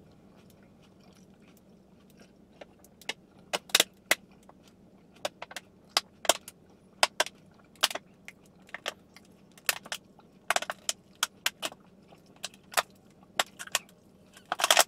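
Thin plastic water bottle crinkling and crackling in irregular sharp clicks as it is squeezed while someone drinks from it.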